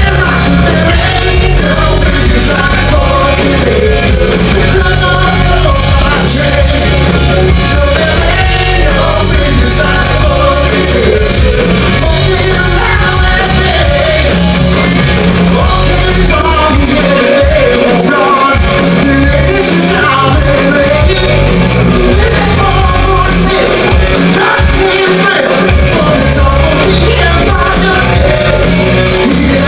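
Hard rock band playing live and loud, with a male lead singer over distorted electric guitar, bass and drums, heard from the audience. The bass and drums drop out briefly a few times in the second half.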